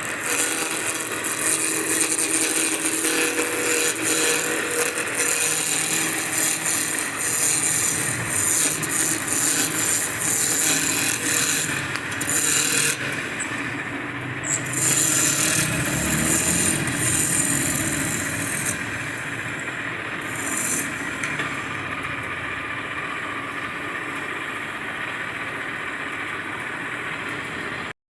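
Tool working wood, with a steady scraping and rasping that rises and falls in bursts.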